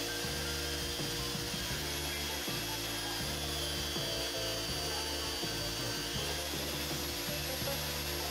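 Steady abrasive rubbing of hand finishing work on the ebonite drill body, under background music with a repeating bass line.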